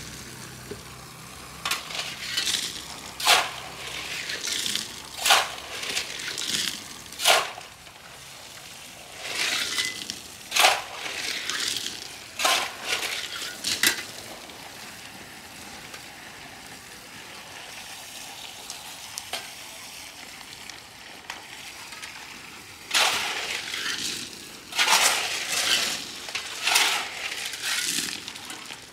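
Shovels scraping and digging into a pile of wet pebbles, the stones crunching and clinking in irregular strokes, over the steady hiss of a hose spraying water onto the gravel. The shovelling comes in bursts, with a stretch in the middle where only the water is heard.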